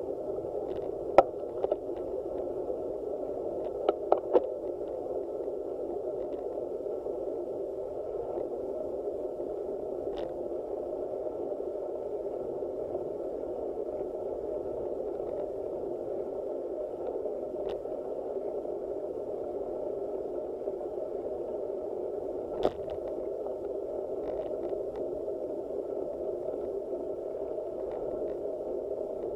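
Steady, muffled rush of wind and road noise on a bicycle-mounted action camera while riding, with a few sharp clicks and knocks from the bike, the loudest about a second in and another near the three-quarter mark.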